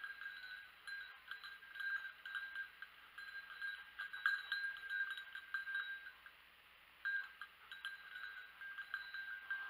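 Hunting dog's collar bell jingling steadily as the dog works through the undergrowth, falling silent for about a second near the middle before ringing again.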